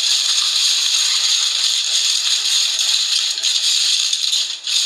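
Aluminium foil being crinkled and pressed around an object, a dense continuous crackling with a brief lull just before the end.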